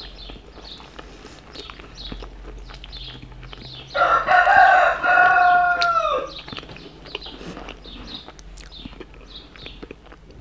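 Close-up wet chewing and mouth smacking, a small click every half second or so. About four seconds in, a rooster crows once for about two seconds, loud over the chewing, its call dropping in pitch at the end.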